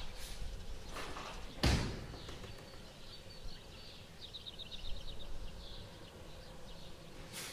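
Pink wicker basket knocked and creaking as a kitten clambers into it, with a sharp knock about a second and a half in and a quick run of high ticks near the middle.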